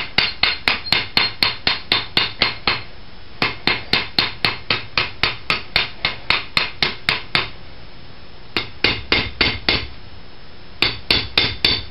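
Small ball peen hammer striking the end of a 3/8-inch round steel bar on an anvil, upsetting it so the end flares out for a rivet head. The blows are quick, about four or five a second, in four runs with short pauses between.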